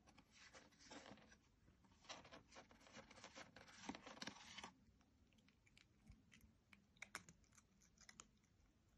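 Faint scratching and clicking of a cat's paw and claws raking a plastic puzzle feeder. It is dense for the first four and a half seconds, then thins to a few scattered clicks.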